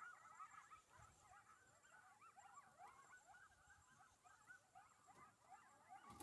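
Faint chorus of coyotes yipping and howling: many short, overlapping high calls that bend up and down in pitch.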